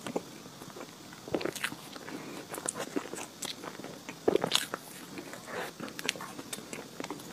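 Close-up mouth sounds of someone eating chocolate layer cake with cream: soft bites, with wet, clicking chewing between them. The louder bites come about one and a half seconds and four and a half seconds in.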